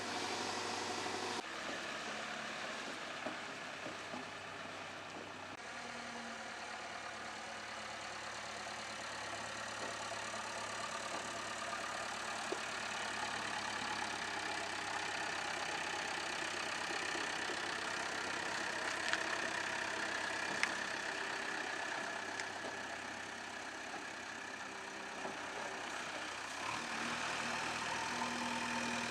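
JCB 3DX backhoe loader's diesel engine running steadily, its note shifting a few times as the load changes. A few short sharp clicks stand out.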